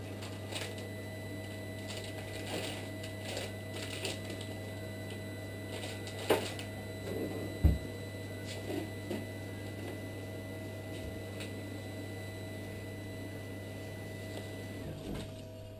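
Steady electrical hum of dental surgery equipment, with scattered small clicks and rustles of instruments and packaging being handled. There is a sharp click about six seconds in and a low thump a second or so later.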